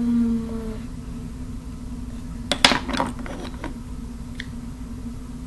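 Small hard objects clattering and rattling together for about a second, about two and a half seconds in, after a short low tone at the very start.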